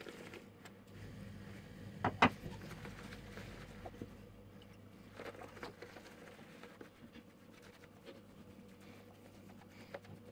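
Shaving brush swirling lather over a stubbled face, a soft scratchy patter, with two sharp knocks about two seconds in.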